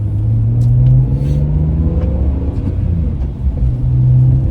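Car cabin noise from a BMW E46 M3 on the move: the straight-six engine drones low and steady, rising a little in pitch about a second in and easing back down near the end, over loud tyre and road rumble from hard Michelin Pilot Super Sport tyres.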